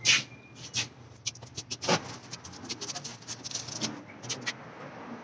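Hand tools being handled at the engine block: an irregular string of sharp clicks and light knocks, the loudest right at the start and about two seconds in, thinning out after about four and a half seconds.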